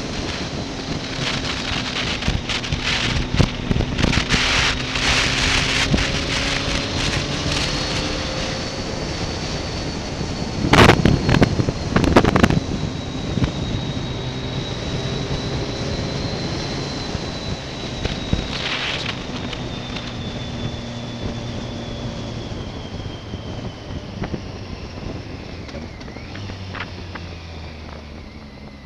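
Motorcycle engine running under way, its pitch drifting slowly up and down with speed, under a steady rush of wind on the microphone. Loud wind buffeting breaks in briefly about a third of the way through.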